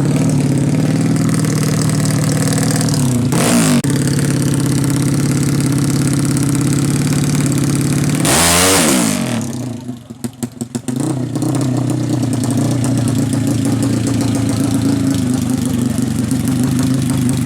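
Fuel-injected Yamaha MX drag-bike engine, bored out to 450cc and running open twin mufflers, idling and blipped sharply twice, about three and a half and eight and a half seconds in. After the second blip it stumbles and sputters unevenly for about a second and a half, then settles back to a steady idle.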